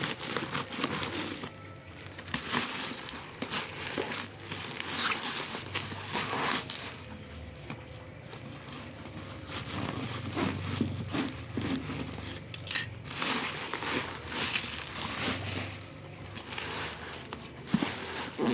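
Packaging crinkling and rustling in irregular bursts while a new electric welding machine is unboxed, with a few sharp clicks of handling.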